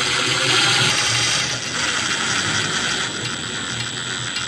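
Electric precision screwdriver running steadily with a high whine, driving small screws into 3D-printed plastic parts.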